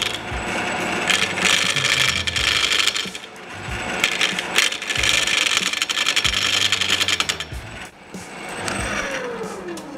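Dull turning gouge roughing a spinning wooden bowl blank on a ShopSmith Mark V lathe: scraping, chattering cuts in two long bursts and a shorter weaker one, over the machine's low hum. In the last second or two a falling tone is heard as the cutting stops.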